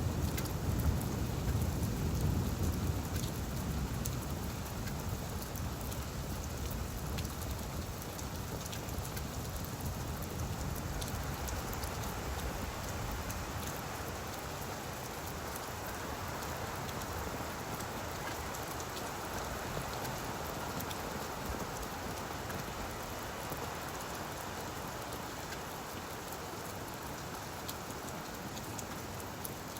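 Steady rain falling on leaves, with fine drop patter throughout. A deep low rumble in the first several seconds dies away.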